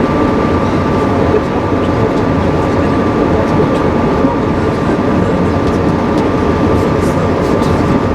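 Passenger train running, heard from inside a railroad car: a steady, even rumble with a constant high hum running through it.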